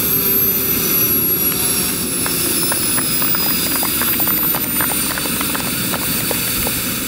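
Scale-model Kamov Ka-52 helicopter on the ground with its coaxial rotors spinning down: a steady rushing rotor sound under a high whine that slowly falls in pitch as the drive winds down.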